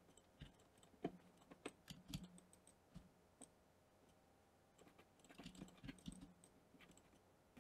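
Near silence with faint, scattered computer keyboard and mouse clicks: a few single clicks in the first three seconds and a short cluster of them near the end.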